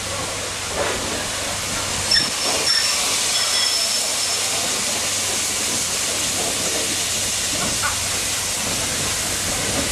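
Steam locomotive drifting slowly tender-first into a station, with a steady hiss of steam. A thin high-pitched squeal comes and goes from about two seconds in.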